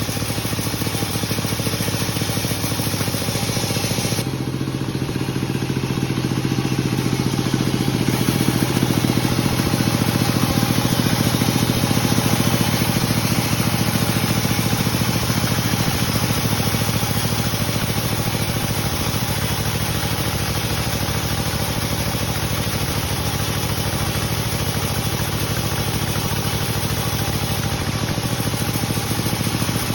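Sawmill machinery running steadily with a continuous engine-like drone and a broad hiss above it; the hiss thins for a few seconds near the start, then the machine grows slightly louder.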